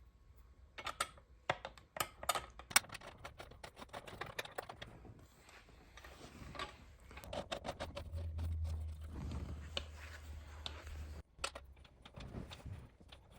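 Small metal hardware and tools clicking, tapping and rattling as an e-bike headlight and its guard are fastened in place, with a faint low hum for a few seconds about eight seconds in.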